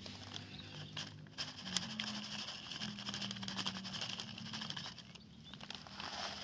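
Dry cat kibble pouring from a plastic bag into a small plastic tray: a rattling patter of pellets with the bag crinkling. The pour breaks off briefly about five seconds in, then a last short pour.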